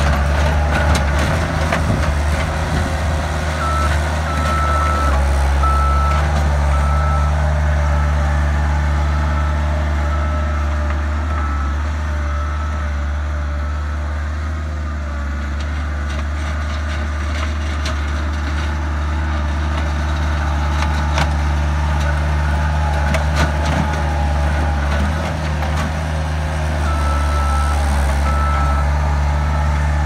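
Bobcat 853 skid steer's diesel engine running steadily under load as it drags a rock rake bucket through stony soil, with occasional knocks. A backup alarm beeps about once a second while it reverses, for about ten seconds from a few seconds in and again near the end.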